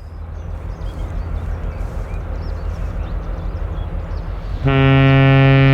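A low rumble, then about four and a half seconds in the classic ship horn of the 1948-built cruise ship ASTORIA (ex-STOCKHOLM) starts suddenly. It is a loud, steady, deep blast rich in overtones, still held at the end.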